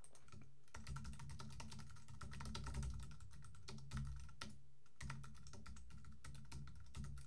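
Typing on a computer keyboard: quick runs of key clicks starting under a second in, with a brief pause a little past halfway.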